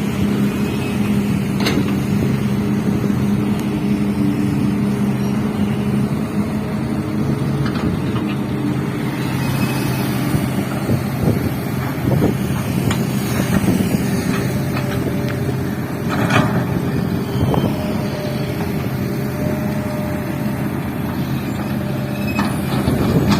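Heavy diesel engine of an excavator running steadily, with a few short sharp knocks now and then.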